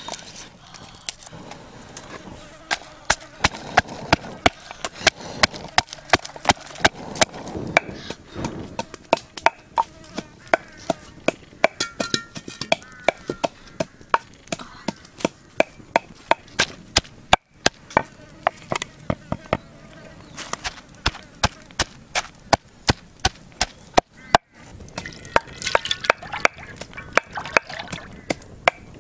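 Knife chopping food on a wooden cutting board: a long run of sharp chops, about two to three a second, broken twice by a short gap.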